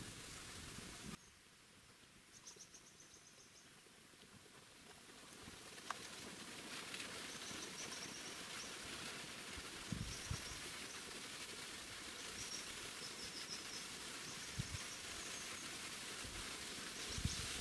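Forest ambience: a steady hiss with short, high-pitched chirping trills repeating every few seconds, and a few soft low thumps. The background drops abruptly about a second in, then slowly builds back up.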